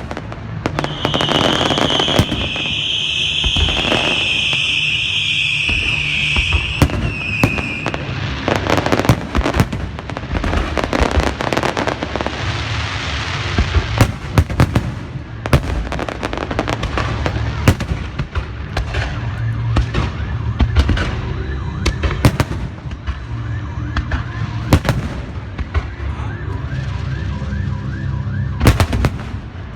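Beehive firework barrage: rockets and firecrackers going off in rapid, dense cracks and bangs, with a high whistling whine over the first several seconds.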